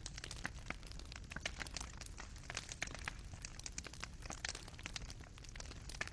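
Fireplace fire crackling: burning coals pop and snap irregularly, several times a second, over a low steady rumble.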